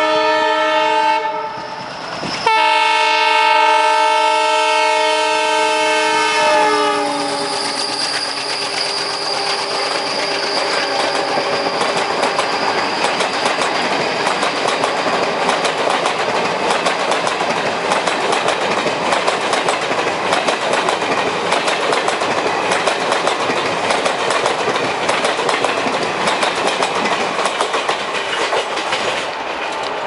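Indian Railways WDM-3A diesel locomotive sounding its multi-tone horn: a blast, a break of about a second, then a longer blast whose pitch drops at about 7 s as the locomotive passes. For the rest of the time, passenger coaches roll by with a steady clickety-clack of wheels over the rail joints.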